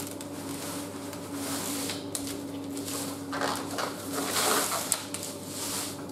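Handling sounds of a folding camp cot being put together by hand: its fabric rustling and its poles scraping, with a burst of rustling a little past halfway and a sharp click just after it, over a steady low hum.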